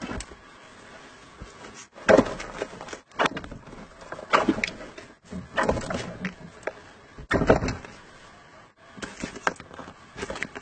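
Irregular scuffs and knocks against a plastic tub, about six over the stretch. The loudest one comes around three quarters of the way through.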